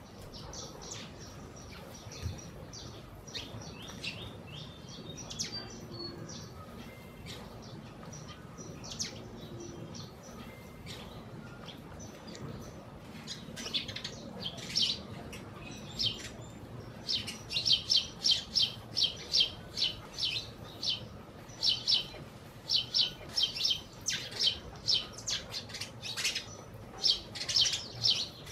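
A small flock of sparrows chirping. Scattered chirps at first, then from about halfway through a quick run of loud, repeated chirps.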